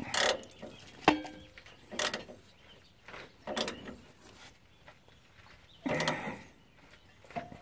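Socket ratchet tightening the lower shock absorber mounting bolt: short bursts of ratchet clicking, irregularly about one a second, with a sharp click about a second in.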